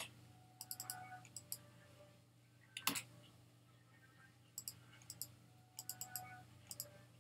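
Light clicks of a computer mouse and keyboard, coming in small quick clusters of two to four, with one louder click about three seconds in, over a faint steady hum.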